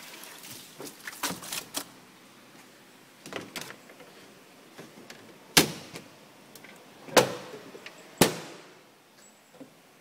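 Plastic covers and lid of a twin-tub washing machine's spin-dryer tub being handled and shut: a few light plastic clatters, then three sharp knocks about a second apart.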